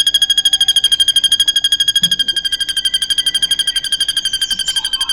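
Drongo (srigunting) singing a long, fast trill of identical high notes, about a dozen a second at one slightly falling pitch: the cililin-style filler it has learned.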